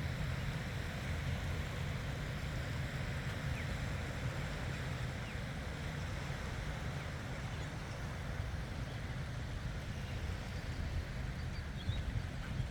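Steady seaside ambience: a continuous wash of wind and water with a low rumble, and a couple of faint high chirps near the end.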